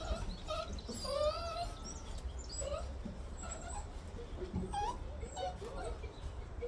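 Bernese Mountain Dog puppies whining and whimpering in a string of short, wavering high cries.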